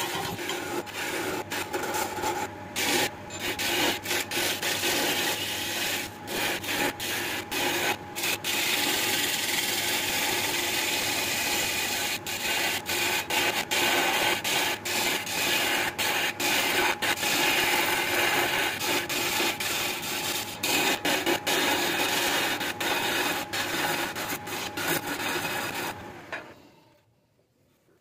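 Turning gouge cutting a spinning blank of wet jackfruit wood on a wood lathe: a steady, rough cutting noise as chips peel off, broken by many brief dropouts. Near the end the cutting stops and the sound dies away to near silence.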